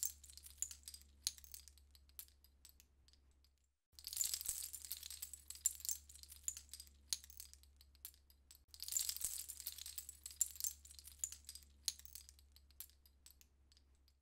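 Sea shell curtain set moving: strings of shells clatter and clink against each other in a dense burst that thins out over a few seconds into scattered clicks. A fresh burst starts about four seconds in and again near nine seconds.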